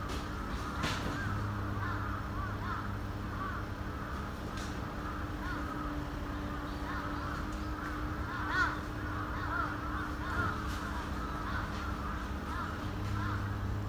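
Many birds chirping and calling at once, a continuous chatter of short calls, over a steady low hum with a few sharp clicks.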